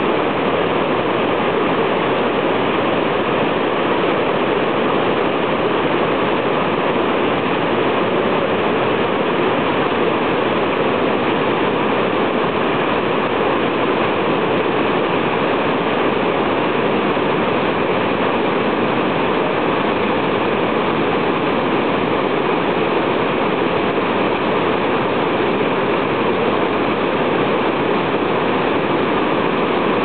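Large waterfall cascading down a steep, broad rock face: a loud, steady rush of falling water.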